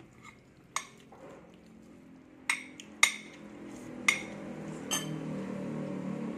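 Metal spoon clinking against a plate while eating: about five sharp clinks spread out, the loudest about three seconds in.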